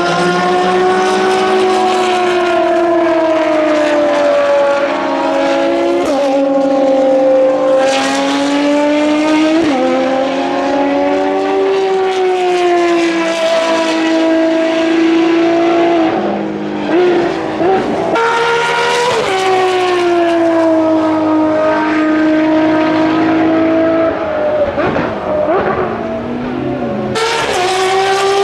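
Ferrari XX Programme track cars' V12 engines at high revs going by on circuit: a continuous high-pitched engine scream that rises and falls as the cars shift gear. Twice, once past the middle and again near the end, the note breaks into quick wavering blips, as on downshifts under braking. The sound changes abruptly near the end.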